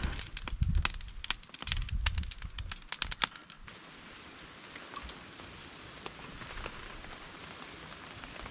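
Wood fire in a small grill crackling and popping, with puffs of air blown through a fire-blowing pipe into the embers during the first two seconds or so. The crackling thins out about three and a half seconds in, leaving a faint hiss and one sharp pop about five seconds in.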